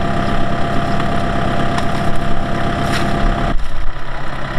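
Tractor diesel engine running steadily. About three and a half seconds in, the engine sound changes abruptly to a different, lower-centred note.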